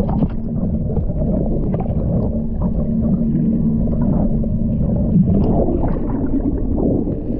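Muffled underwater rumble and gurgling of water against a submerged camera, with a low steady hum under it.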